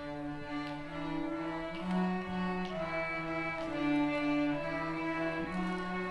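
A student string ensemble playing a slow tune in long bowed notes, with a lower held line underneath.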